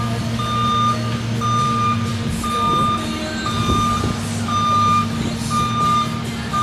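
Backup alarm of a construction vehicle beeping steadily, about one beep a second, over the vehicle's engine running.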